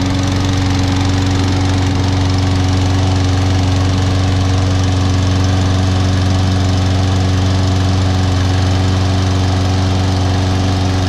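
Toro Recycler Personal Pace lawn mower's Briggs & Stratton 7.25 gross-torque engine running steadily just after starting, its pitch constant.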